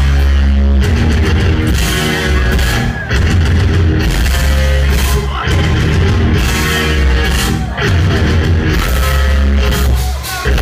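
Live rock band playing a thrash metal song: distorted electric guitars, bass and drums, loud, with short breaks in the riff every couple of seconds. Heard from within the audience.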